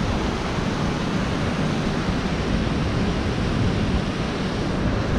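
Steady rush of water pouring from a dam outflow: an even, continuous roar of moving water.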